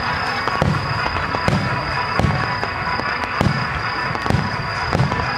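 Fireworks display: about seven shell bursts booming in quick, irregular succession, each with a low rumbling tail, over a continuous dense din.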